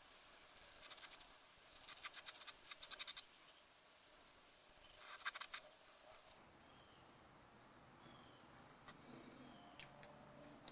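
Hand work on a small two-stroke carburetor: three short bouts of rapid scratchy clicking from a tool on the metal carburetor body, with a couple of single ticks near the end.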